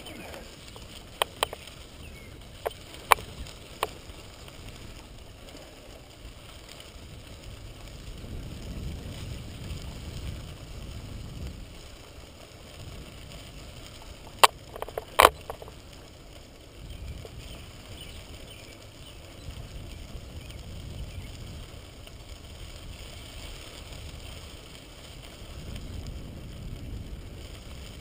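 Bicycle rolling along a gravel trail: a low rumble of tyres on crushed stone that swells and eases in waves. Sharp clicks and knocks from the bike jolting over bumps come several times in the first four seconds and twice more about fifteen seconds in.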